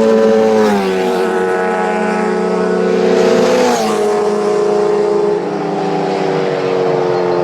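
Road-racing motorcycle engines running at high revs as they go past, a loud steady note whose pitch drops in steps about four times.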